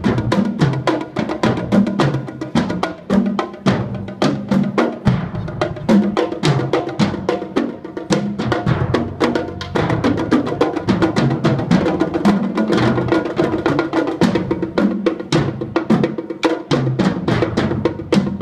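A percussion ensemble playing a fast piece: drums, congas and mallet keyboard instruments struck in a dense, steady stream of beats over pitched notes.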